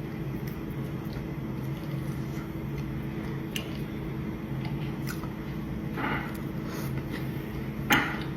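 Someone eating on camera: short wet bites and chewing, the loudest about 6 and 8 seconds in, over a steady low hum.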